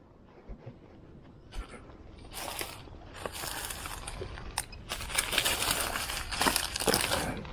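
Water splashing and sloshing close to the camera in irregular bursts with a few sharp clicks, fairly quiet at first and louder from about two seconds in.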